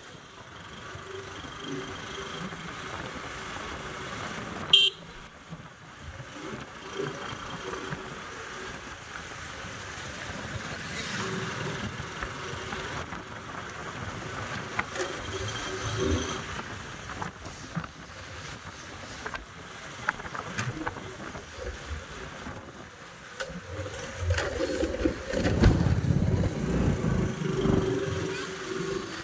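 Town street traffic: vehicle engines running, with short horn toots now and then. A sharp click sounds about five seconds in, and a louder low engine rumble builds near the end.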